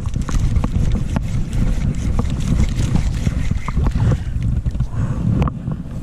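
Wind buffeting the microphone in a steady low rumble, with a few short sharp clicks and splashes as a hooked largemouth bass is reeled to the boat and thrashes at the surface.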